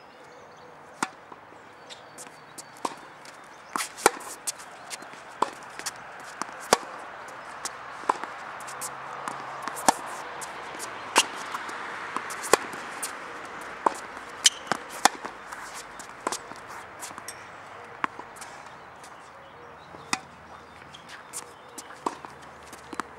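Tennis balls struck by rackets and bouncing on a hard court during a rally, a run of sharp pops and knocks at irregular intervals, about one every half second to second.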